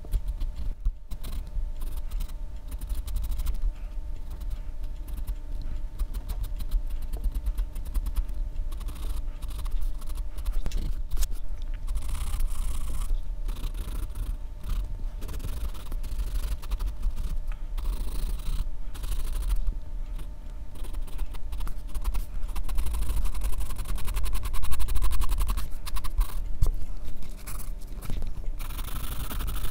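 Graphite pencil scratching across drawing paper in sketching and shading strokes, denser in stretches of quick hatching, over a steady low rumble.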